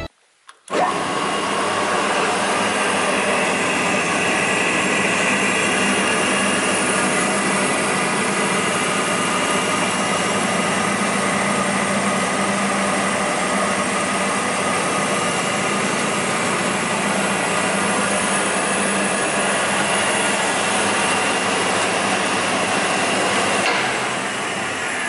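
REMA DMMA 35 table circular saw running with no load, a steady whir of motor and spinning blade that comes in abruptly about a second in and eases slightly near the end.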